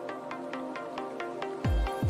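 Electronic background music: held synth tones over a fast, even ticking beat, with a deep kick drum coming in near the end.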